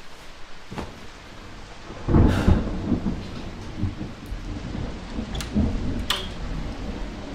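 Steady rain with a loud rolling thunderclap about two seconds in that rumbles on and fades, followed by two sharp cracks a little under a second apart.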